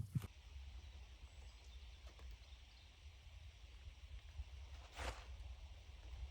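Faint outdoor ambience with a steady low rumble, a short click at the start and one brief light knock or rustle about five seconds in.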